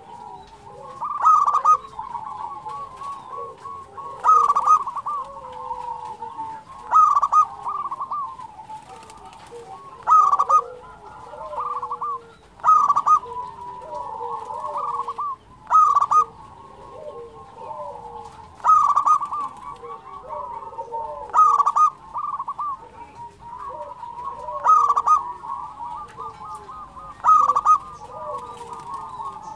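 Zebra dove (perkutut) song: loud staccato cooing phrases repeated about every three seconds, over a steady layer of softer cooing underneath.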